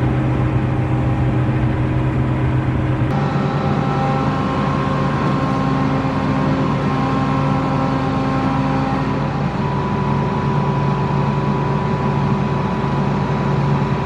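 Combine harvester's engine running steadily with an even hum, its tone shifting abruptly about three seconds in and again near ten seconds.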